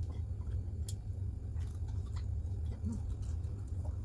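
Eating sounds: scattered small clicks and smacks of chewing and handling food, over a steady low hum.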